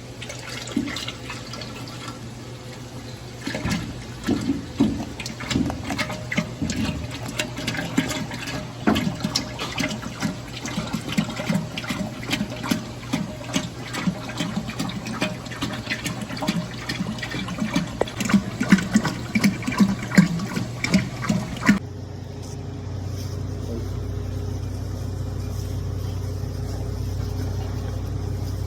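Hot oil bubbling and crackling as chicken fries, with dense irregular pops over a steady low hum. About 22 seconds in, the sound cuts off abruptly and a steady low hum follows.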